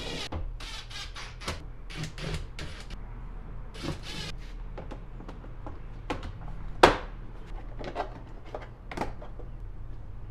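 Irregular hard-plastic clicks and knocks as a Ford F-150's door trim panel is refitted and pressed onto the door, its clips snapping into place; the loudest sharp snap comes about seven seconds in.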